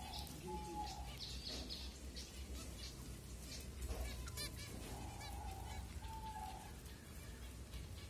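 Zebra finches chirping and calling in short, scattered notes while they feed at a seed bowl, over a steady low hum. A longer, steady-pitched tone sounds near the start and again about five seconds in.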